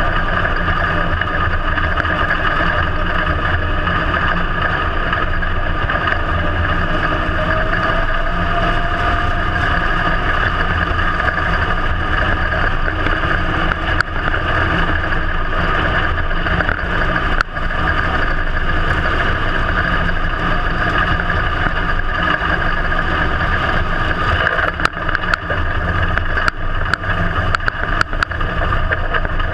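IMCA Modified dirt-track race car's V8 engine running steadily, heard from inside the cockpit. Scattered sharp clicks and knocks come in over it in the last few seconds.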